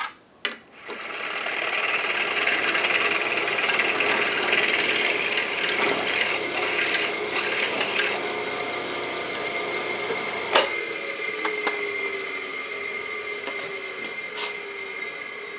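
Benchtop drill press running, its bit enlarging a hole in a small metal part clamped in a drill-press vise, with a steady whine under the cutting noise. A sharp click comes about ten seconds in, after which the motor's tone slowly falls as it winds down.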